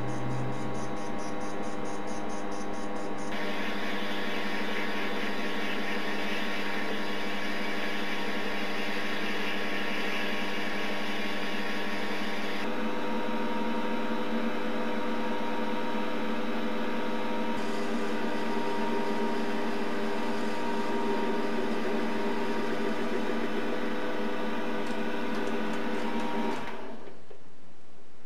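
Optimum D180x300 mini lathe running with its spindle turning: a steady motor whine made of several tones. The sound changes about 3 s in and again about 13 s in, and stops shortly before the end.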